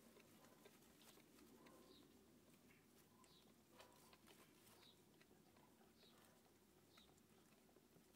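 Faint, high-pitched squeaks from a newborn kitten, about one a second, with soft clicks as the mother cat licks it clean just after birth.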